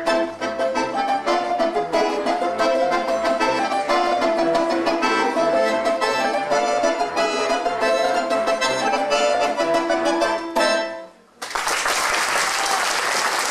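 Balalaika and button accordion (bayan) playing a folk quadrille, a dense run of plucked balalaika notes over sustained accordion tones, ending on a final chord about ten and a half seconds in. After a short pause, audience applause starts and continues.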